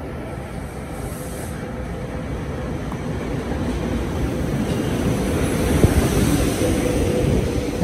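SEPTA Silverliner IV electric multiple-unit train running along the platform, its wheels rumbling on the rails and growing louder as the cars come alongside, with a steady hum and one sharp clack about six seconds in.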